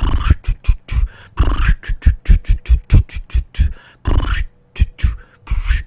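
A man beatboxing: rapid mouth-made drum sounds, deep booms mixed with hissing, snare-like clicks, several a second in short runs, mimicking a marching drum part.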